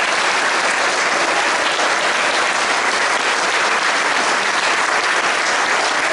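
Audience applauding steadily, a dense sustained clapping at the end of a chamber music performance.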